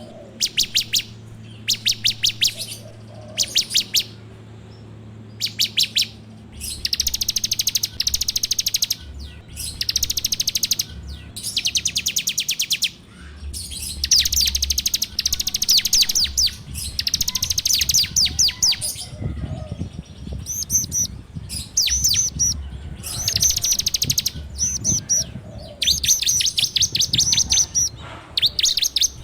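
Ciblek (bar-winged prinia) singing: bursts of very fast, rattling repeated notes, each phrase lasting a second or two with short pauses between.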